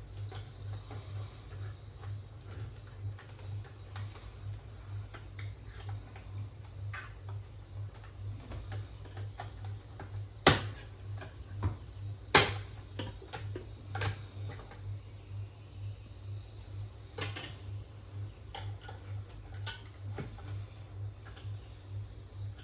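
Scattered clicks and knocks of hand tools and small parts on a computer's casing during disassembly, with two sharp, loud clicks about halfway through, over a steady, pulsing low hum.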